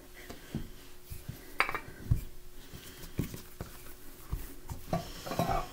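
Scattered light knocks and taps of a knife and a wooden rolling pin on a floured countertop as pie dough is trimmed and rolled up onto the pin, over a faint steady hum.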